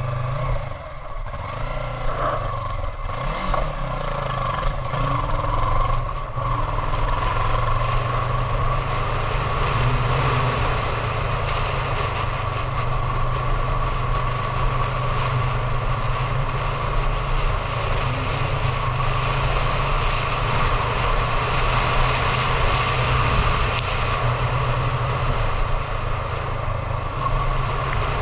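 Motorcycle engine, plausibly the rider's Honda Hornet 750 parallel-twin, running as the bike rides along. The engine note shifts and climbs over the first few seconds, then settles into steady cruising under a steady rush of wind noise.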